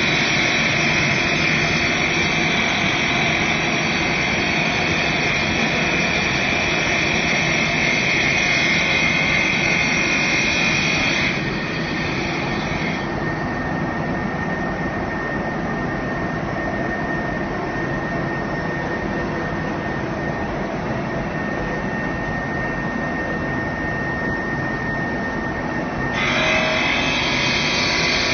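Fibre-cement board cutting machine running steadily with a high-pitched whine over a mechanical drone. The whine drops away about eleven to thirteen seconds in and comes back near the end.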